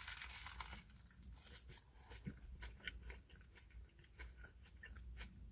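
Faint chewing of a sandwich close to the microphone: soft, irregular mouth clicks and smacks.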